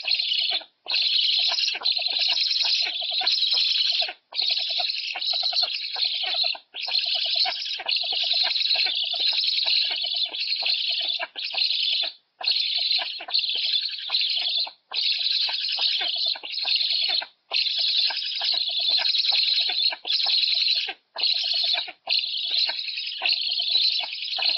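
Young black storks begging on the nest: a continuous rasping call in runs of one to four seconds, broken by brief pauses.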